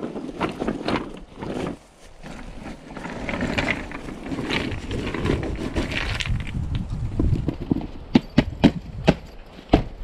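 Rough stones clattering and knocking together as they are tipped from a canvas bag onto pine needles, with rustling and scraping, then a quick run of sharp clacks near the end.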